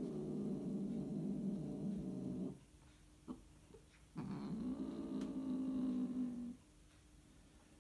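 Scottish fold cats mating: two long, low, drawn-out yowls, the first ending about two and a half seconds in and the second starting about four seconds in and lasting around two seconds.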